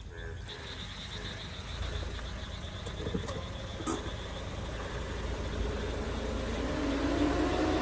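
Car engine running as the car drives up and idles close by, growing gradually louder. A steady high-pitched trill runs in the background.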